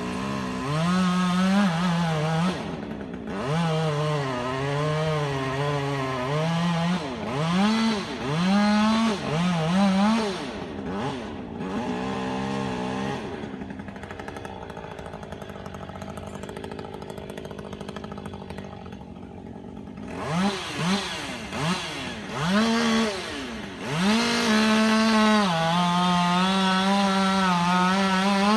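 Two-stroke chainsaw engine revving up and down in repeated throttle bursts, easing to a quieter, lower running in the middle, then held steady at high revs for the last few seconds, as when cutting into a tree.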